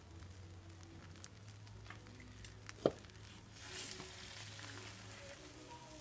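Beaten-egg omelette frying in a pan, a soft sizzle with light crackles. A single sharp click about halfway through.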